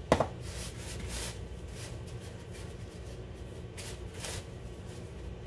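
Plastic-gloved hands coating pastries in sugar in a plastic bowl: soft rustling and scraping, with one sharp knock right at the start.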